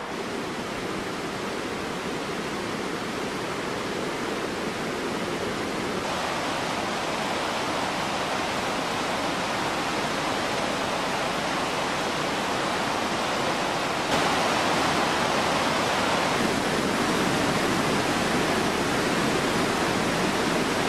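Water pouring over a river weir: a steady rushing that swells slowly and steps louder about two-thirds of the way through.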